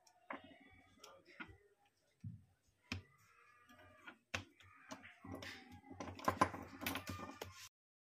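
Small clicks and taps of a smartphone's plastic inner frame and metal tweezers being handled as the frame is pressed into place on the phone, with a denser run of clatter in the last couple of seconds. The sound cuts off suddenly near the end.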